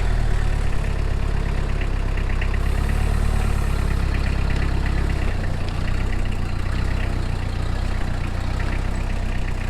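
Engine idling steadily with a deep, even rumble; the low part of the sound shifts slightly about five seconds in.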